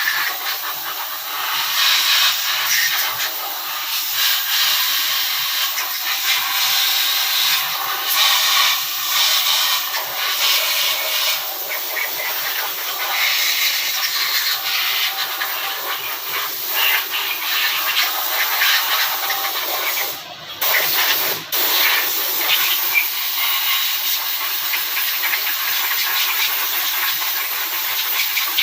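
Loud, steady hissing, like a jet of spray or air, that cuts out briefly twice about twenty seconds in.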